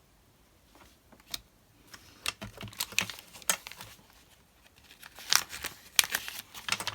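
Sheets of paper and card being leafed through and handled, with crinkling rustles and light clicks, sparse at first and busier in the second half.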